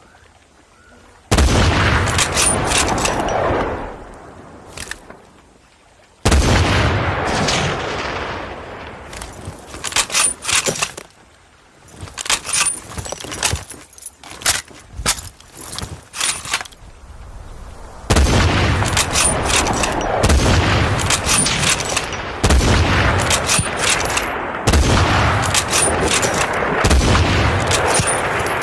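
M40 bolt-action sniper rifle firing a string of single heavy shots, each with a long fading echo. Sharp clicks sound between some shots. Toward the end the shots come about every two seconds, so their echoes run into one another.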